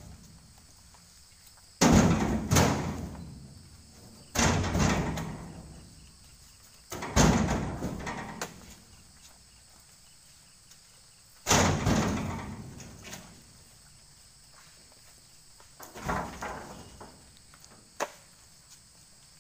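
Oil palm fresh fruit bunches thrown into a steel lorry bed, each landing with a heavy thud that rings on and dies away over a second or two. About five heavy landings every few seconds, with a lighter knock near the end.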